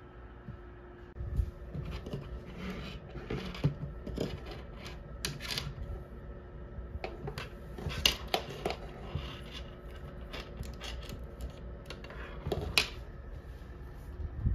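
Irregular light clicks and knocks of small objects being handled on a wooden desk, over a faint steady room hum; a few sharper taps stand out.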